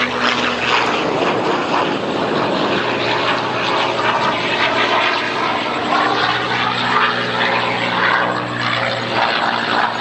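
P-51 Mustang's V-12 piston engine droning steadily as the fighter flies low over the boats, its note drifting slightly in pitch as it moves.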